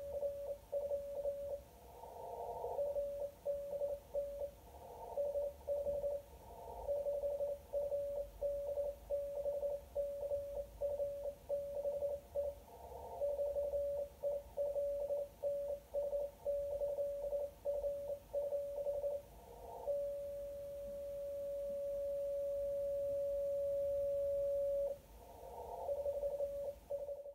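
Morse code (CW) from a homebrew Arduino and Si5351 beacon, heard through a receiver as a single tone of about 600 Hz keyed on and off, sending the beacon's identification message. About 20 seconds in the key is held down for one long unbroken tone of about five seconds, then the dot-dash keying resumes near the end.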